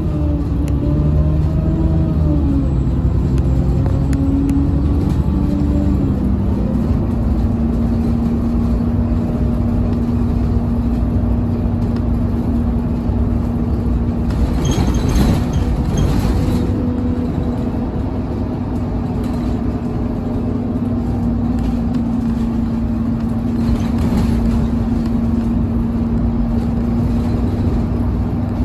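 Inside a moving city bus: the engine and drivetrain run under way, the engine note stepping down twice in the first few seconds as the gearbox changes up, then holding a steady hum over road noise while cruising. A brief louder rush of noise comes about fifteen seconds in.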